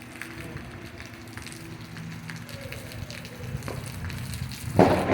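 Rain falling, with scattered drips and spatters crackling on hard surfaces. Just before the end a sudden, much louder rush of noise sets in.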